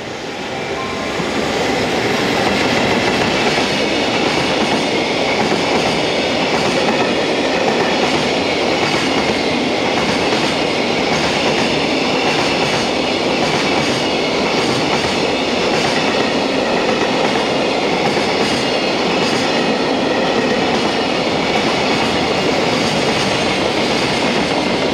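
A freight train hauled by an EF210 electric locomotive running past with a long string of container wagons. It is a steady noise of wheels on the rails that swells over the first couple of seconds as the locomotive comes by, then holds level as the wagons follow.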